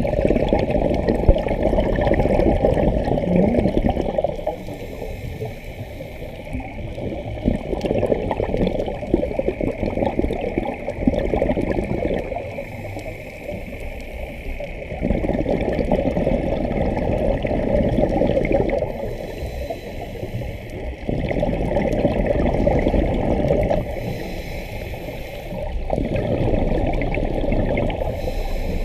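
A scuba diver's regulator breathing, heard underwater: long gurgling bursts of exhaled bubbles every few seconds, alternating with quieter inhales that carry a faint high hiss.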